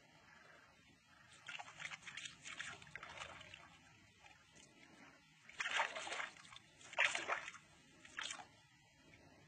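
Water splashing and sloshing in a series of short bursts, the loudest in the second half, as a fishing line is dragged through the shallows.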